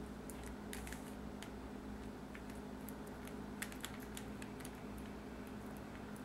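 Rubik's Cube layers being turned by hand: irregular light plastic clicks, a few a second, over a faint steady hum.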